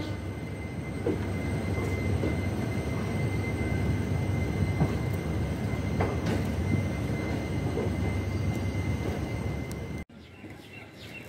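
Passenger train coaches running on rails: a steady rumble of wheels on track with occasional short clacks, cut off abruptly about ten seconds in by a much quieter scene.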